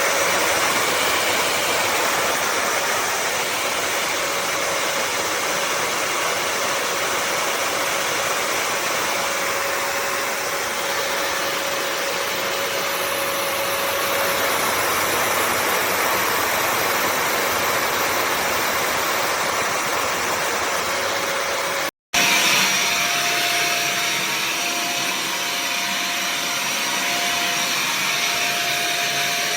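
Bissell CrossWave HydroSteam Pet wet-dry vacuum mop running, its suction motor and brush roll making a steady loud rush. The sound cuts out for an instant about 22 seconds in, then resumes with a faint steady whine added.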